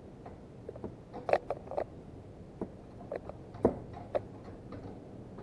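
Ratchet wrench clicking unevenly as bolts are worked loose, mixed with metal tools knocking. The two sharpest knocks come about a second in and just before four seconds in.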